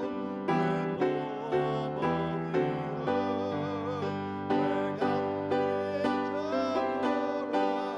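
Live worship song: instrumental accompaniment with chords struck about twice a second, under a wavering melody line.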